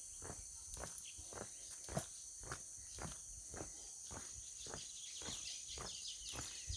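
Footsteps walking at a steady pace, about two steps a second, over a steady high-pitched chorus of insects.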